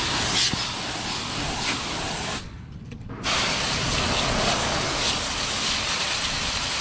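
Hard, hissing spray of water, cutting out for under a second about two and a half seconds in and then resuming, with a low rumble continuing underneath.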